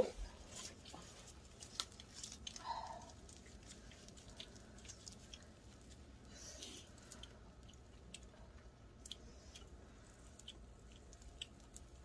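Faint scattered small clicks and soft rustles of a hot roasted sweet potato being peeled by hand.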